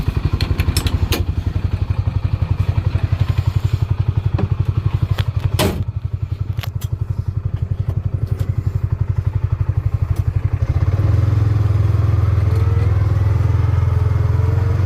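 Farm buggy engine running steadily while driving over rough ground, with sharp knocks and rattles, the strongest about five and a half seconds in. The engine gets louder about eleven seconds in, as the buggy speeds up.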